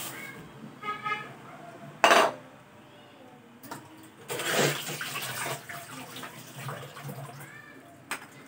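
Stainless steel cooking pot's lid lifted off with a loud clank about two seconds in, followed by a stretch of clattering and water noise from the simmering soup. A short clink of a metal ladle against the pot comes near the end.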